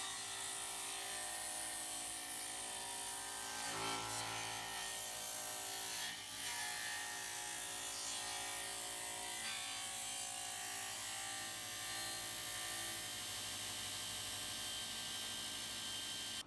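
Sliding table saw running steadily while a wooden shelf board is fed along on its sliding carriage. There are brief changes in the sound about four and six seconds in.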